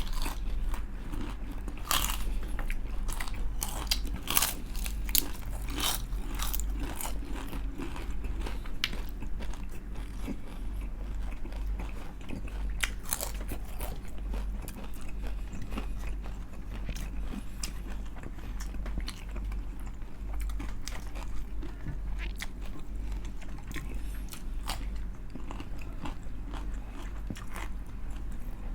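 Close-up crunching bites and chewing of crispy deep-fried chicken skin, the crunches coming thick and fast at first and thinning out later.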